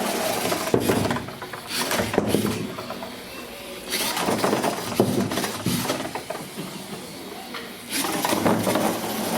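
Small autonomous robot's drive motors running in spurts as it moves about a tabletop, with short knocks and clatter mixed in.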